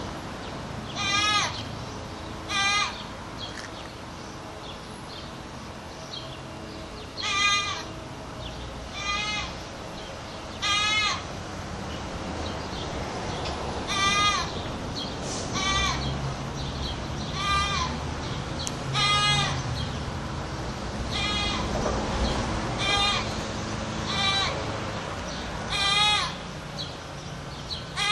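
A goat yelling: about a dozen loud, high, quavering bleats, each under a second long, repeated every second or two with one longer pause early on.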